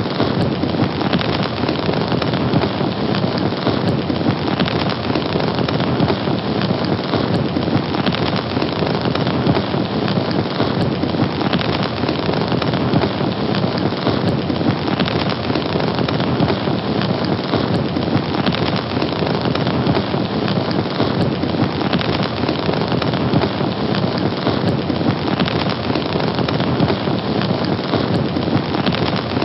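Fire burning: a steady, dense rush of flames with fine crackling.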